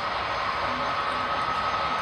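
Model passenger train cars rolling past on the track: a steady rolling noise with a thin, unchanging tone running through it.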